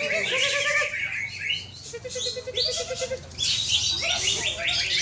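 Several caged songbirds singing at once: fast overlapping chattering trills and whistles, with a run of lower repeated notes in the middle and a brief lull just after.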